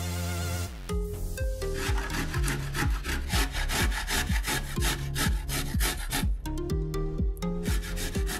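Garlic cloves grated on a stainless steel box grater, starting about a second in as a quick run of scraping strokes, several a second. Background music with a beat plays underneath.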